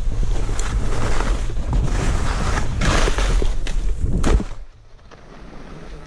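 Skis scraping and chattering over snow, with wind buffeting the microphone. Just past four seconds in there is a sharp knock, then it drops much quieter for about a second and a half before the scraping picks up again.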